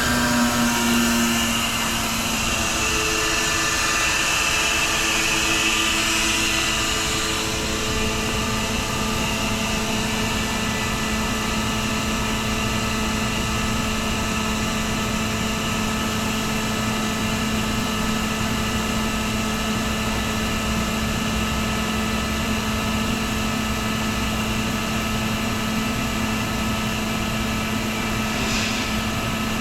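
CompAir L37S rotary screw air compressor running steadily, with a constant motor hum and whine. A hiss fades out over the first several seconds, and a short hiss comes near the end.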